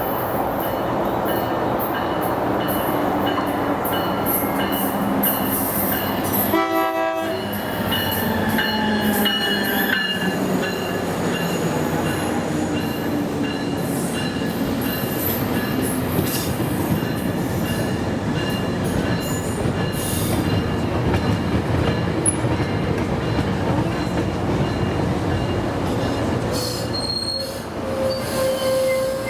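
Train rolling through the station: a steady rush of wheels on rail with a thin, high steady squeal from the wheels. A short horn toot sounds about seven seconds in.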